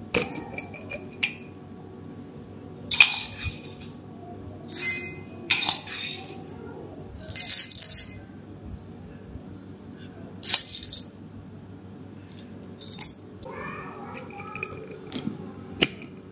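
Whole roasted coffee beans rattling as they are scooped and poured with a metal scoop, in a series of short bursts, over quiet background music.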